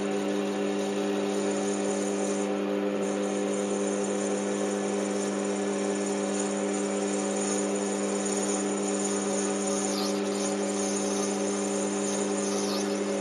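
Lathe-mill combination machine running with a steady hum while its boring bar cuts out the bore of a POM plastic disc.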